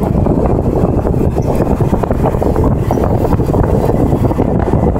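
Steady rushing wind and road rumble from a vehicle moving at speed, with wind buffeting the microphone.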